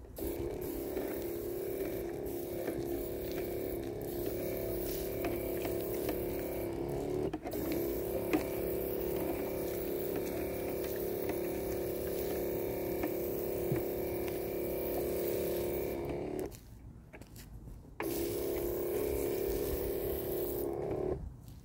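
A steady hum made of several held tones, cutting out sharply about sixteen and a half seconds in, returning a second and a half later, and cutting out again near the end.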